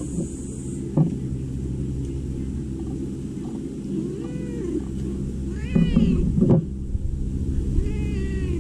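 A cat meowing several times a few seconds apart, the loudest meow about six seconds in. There is a short knock about a second in.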